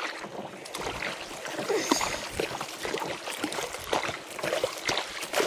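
Kayak paddle strokes through lily pads: water splashing and trickling off the blade, with irregular small knocks and scrapes.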